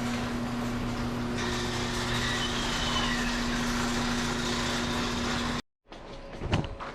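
MAP gas torch burning with a steady rushing hiss, heating a seized exhaust manifold bolt, over a constant low electrical hum; it cuts off abruptly about five and a half seconds in.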